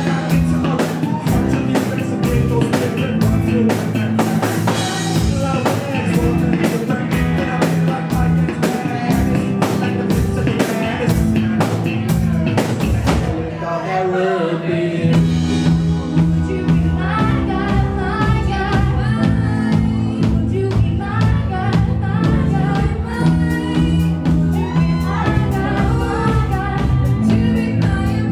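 A live rock band plays with several singers: drum kit, bass, keyboards and guitar under lead and group vocals. The drums thin out briefly about halfway through before the singing comes forward over the full band.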